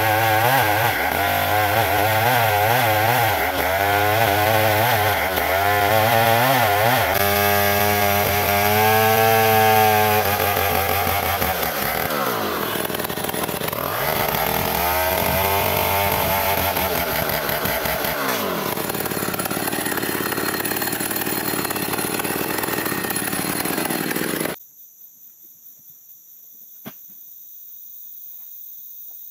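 Chainsaw ripping lengthwise through ulin (Bornean ironwood), its engine note wavering under load and dropping then picking up again twice. It cuts off sharply near the end, leaving high-pitched insects chirping with a couple of faint clicks.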